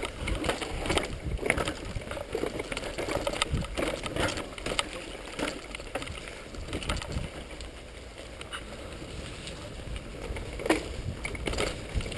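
Mountain bike ridden fast over rock slabs, gravel and dirt trail: tyres crunching and the frame and chain rattling, with many sharp knocks from hits on the rough ground.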